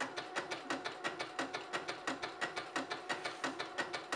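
Bernette Sew and Go 8 electric sewing machine stitching knit fabric on its lightning stitch, the needle going in a fast, even run of clicks.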